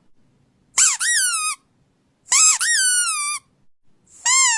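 Three squeaks from a squeaky dog toy, each under a second long, with a quick rise in pitch and then a slide down. The third is cut short near the end.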